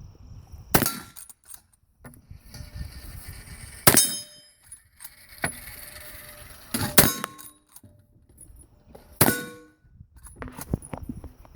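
Four shots from a lever-action Winchester 1895 rifle, each followed by the ring of a hit steel target, with smaller clicks between the shots.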